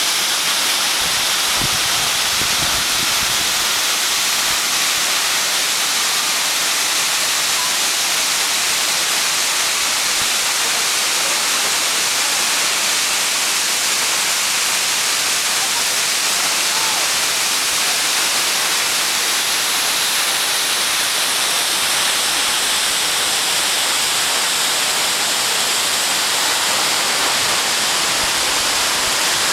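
Waterfall pouring into a pool: a steady, loud rushing hiss of falling water that doesn't change.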